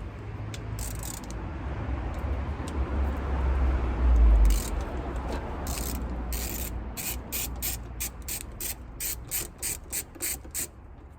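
Ratchet wrench clicking in an even run of about three clicks a second, undoing fasteners during the condenser removal. It follows a low rumble of handling noise with a heavier thump about four seconds in.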